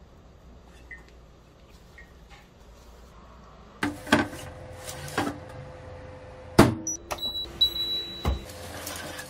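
Baking tray slid into an oven, with a few sharp metal clatters. Then a loud knock as the oven door shuts, short electronic beeps from the oven's control panel as it is set, and a steady hum from the running oven.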